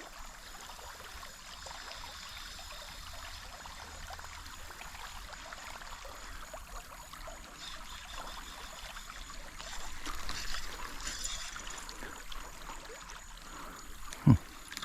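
Shallow creek water flowing and trickling steadily, swelling a little louder for about a second and a half some ten seconds in, with one short low sound near the end.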